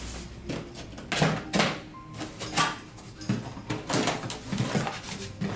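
Cardboard product boxes being handled: a run of irregular knocks, taps and rustles.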